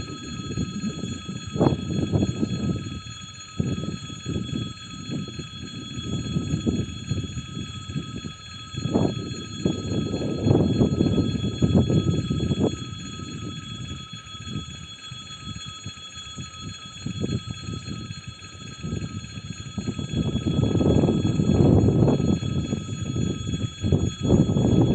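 Wind gusting and buffeting the microphone, uneven and louder near the end, over a steady high ringing of several held tones.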